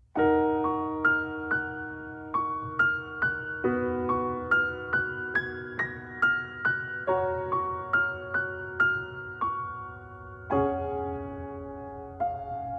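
Music: a piano playing a slow melody, notes struck about two a second over held lower notes, growing sparser near the end.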